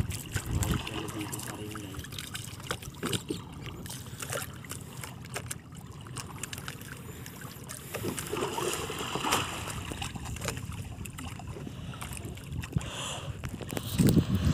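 Water lapping and splashing against the hull of a small outrigger fishing boat at sea, with scattered light knocks and clicks on the boat.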